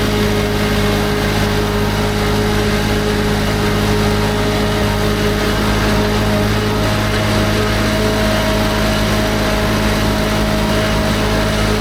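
Kymron XTL 30 mini skid steer's engine running steadily at a constant speed, with only slight changes in pitch.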